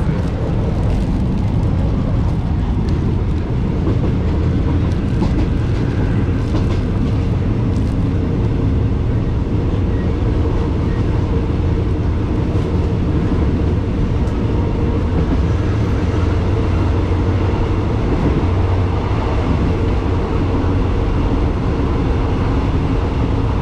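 Steady running noise of a moving Thai State Railway passenger train heard inside the carriage with its window open: an even, low rumble.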